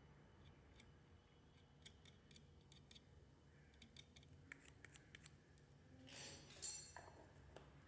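Near silence with faint, scattered clicks and scrapes of a metal spatula dabbing soldering flux onto a phone circuit board, then a brief louder knock and rustle about six seconds in.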